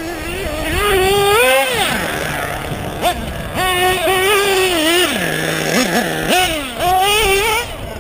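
LRP ZR.30 nitro engine in a Team Associated RC8 1/8-scale buggy, revving up and down as the car is driven, the pitch rising and falling with the throttle. About five seconds in it falls back to a low idle for about a second before picking up again.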